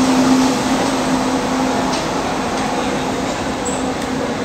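Passenger train coaches rolling slowly along the station platform: a steady rumble of wheels on rail, with a low hum that weakens about halfway through.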